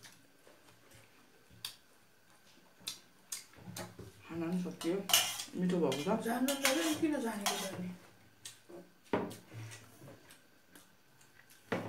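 Metal spoons clinking and scraping against stainless-steel bowls of noodles, in scattered sharp clicks. A person's voice sounds for a few seconds in the middle.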